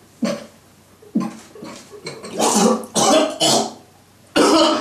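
A man coughing in several fits, short at first and then longer, bringing up red liquid into a bathroom sink.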